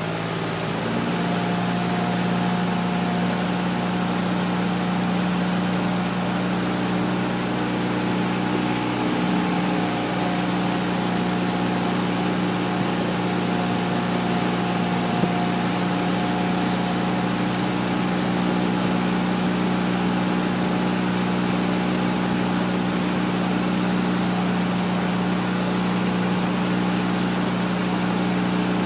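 Small boat motor running steadily at low speed, a constant hum with several steady tones.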